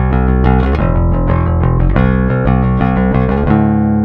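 Electric bass guitar playing a quick riff of plucked notes, about four a second, ending about three and a half seconds in on a held note left ringing.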